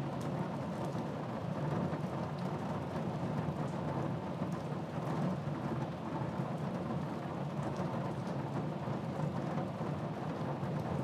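Steady rain falling with a low, continuous rumble of thunder, and a light patter of drops over it.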